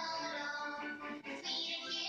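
A children's song playing: music with a sung, child-like vocal melody.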